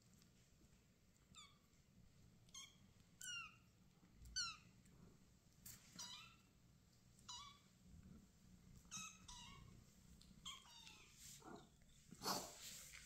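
Young kittens meowing: short, faint, high-pitched calls that drop in pitch, about one a second, with a louder, rougher sound near the end.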